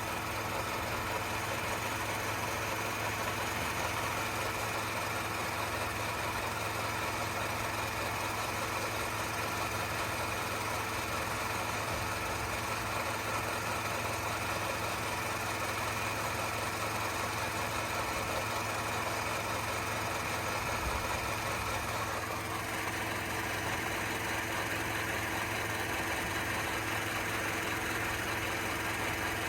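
Honda N-WGN Custom turbo with its S07A three-cylinder turbo engine and CVT running at a steady idle. A 'sa-sa-sa' rubbing sound comes from the transmission, which the owner finds unusually loud but the dealer called normal. The upper part of the sound shifts about two-thirds of the way through.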